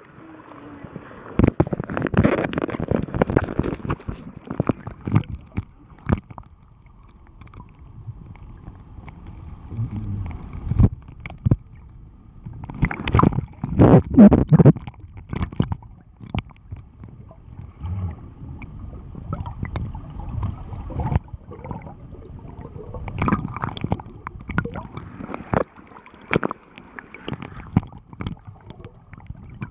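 Water gurgling and sloshing, muffled as heard from inside a waterproof camera case held in the water, with irregular knocks and a louder burst of splashing about halfway through.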